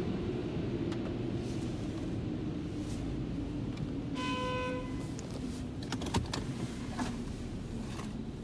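Car creeping forward at low speed, heard from inside the cabin as a steady low rumble. A short electronic beep sounds about halfway through, and a few clicks and a knock follow near the end.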